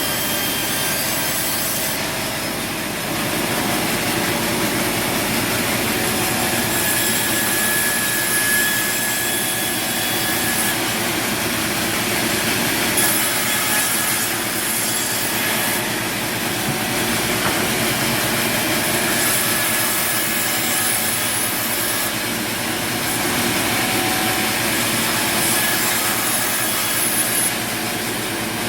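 A saw cutting through wood, as in a sawmill: a continuous loud, rasping sawing noise that shifts in character every few seconds.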